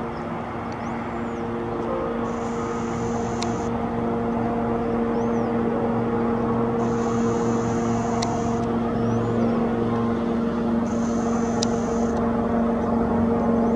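Military attack helicopter flying overhead: a steady engine and rotor whine that grows louder as it approaches.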